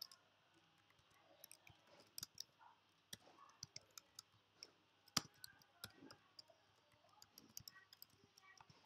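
Computer keyboard being typed on: faint, irregular key clicks, with one sharper strike about five seconds in.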